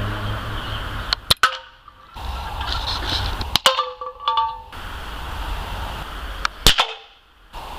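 Three sharp bangs from a homemade hydrogen-combustion rifle firing, about a second and a half in, at about three and a half seconds and near the end, each followed by a brief ringing tone. A steady low rumble and hiss runs between the shots.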